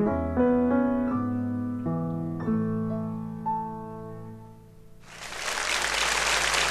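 Grand piano played four hands, a lullaby closing with its last notes ringing out and fading away. About five seconds in, a steady wash of applause starts up.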